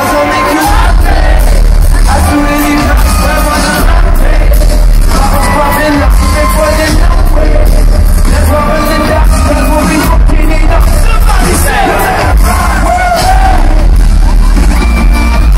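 Live band music with a singer over loud, heavy bass and a steady drum beat, heard from among the crowd.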